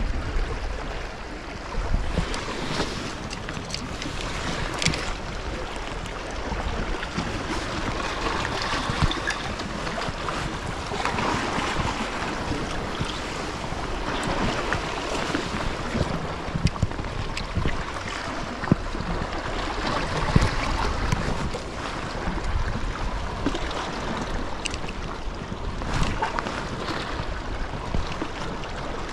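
Sea water washing against the rocks, with wind buffeting the microphone: a steady rushing noise broken by a few sharp clicks.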